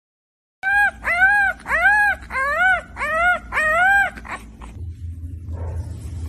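A very young puppy crying for attention: about six high whines in quick succession, each rising and then falling in pitch. After them a steady low rumble sets in.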